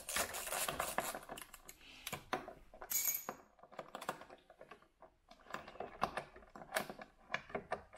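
Hand-held 10 mm socket driver unscrewing the rear light's retaining bolts: a run of small, irregular metal clicks and taps. A brief metallic ring about three seconds in.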